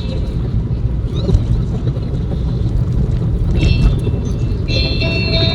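Steady low road and engine rumble inside a moving car's cabin. About three-quarters of the way through, electronic tones from a phone's speaker start up.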